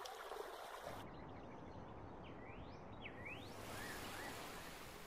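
Soft outdoor nature ambience: a steady hiss of background noise with a few short rising bird calls in the middle.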